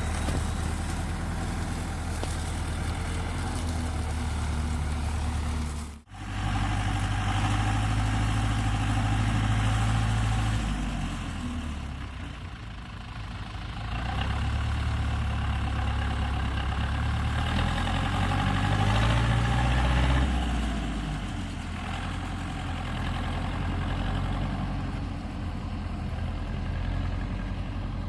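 Tractor diesel engine running, its low drone swelling and easing several times as the load or throttle changes, with a brief drop-out about six seconds in.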